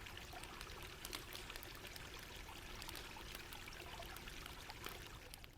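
Soft, steady sound of running water, trickling, with small scattered ticks through it.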